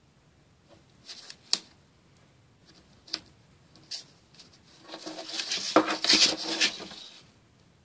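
A cat pawing inside a cardboard box: scattered claw taps and scratches on the cardboard, then a longer, louder burst of scratching and rustling about five seconds in as it tugs at yarn.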